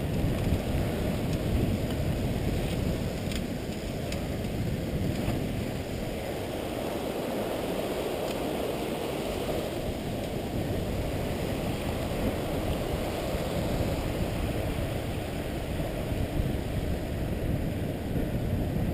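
Steady rush of wind over a helmet-mounted action camera's microphone, mixed with the rumble of mountain bike tyres rolling fast on a concrete trail, with a few faint rattles early on.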